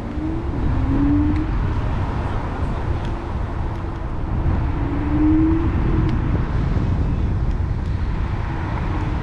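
Road traffic noise with a steady low rumble, and a rising whine twice: once about a second in and again about five seconds in.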